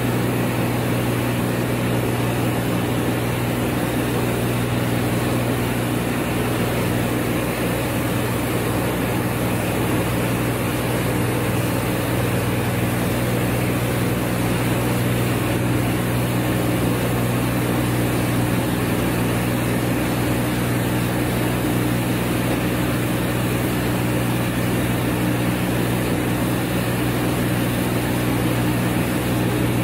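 Compact combined rice milling machine running steadily, its electric motors and fans giving an even mechanical hum with a steady low drone.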